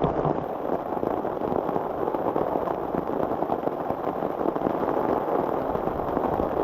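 Heavy rain in a thunderstorm downpour, a dense, steady patter of drops hitting close by.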